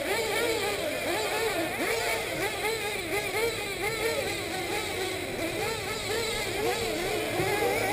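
Several 1/8-scale nitro RC buggies racing, their small glow-fuel engines revving up and down. Many overlapping whines rise and fall continuously as the cars accelerate and brake around the track.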